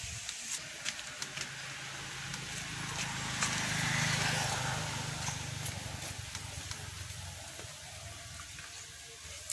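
A low engine-like hum, with a hiss above it, swells to its loudest about four seconds in and then fades, like a vehicle passing at a distance. In the first second and a half there are a few light crackles and clicks of dry leaves and twigs.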